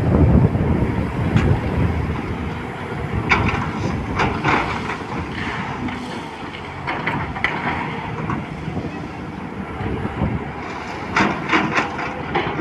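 Volvo excavator's diesel engine running with a steady low rumble, with several bursts of clattering as iron ore rattles and knocks against the steel bucket.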